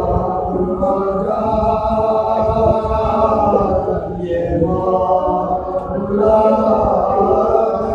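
A group of men chant a Muharram mourning lament together, a lead reciter joined by his accompanying voices, holding long sustained notes amplified through a microphone.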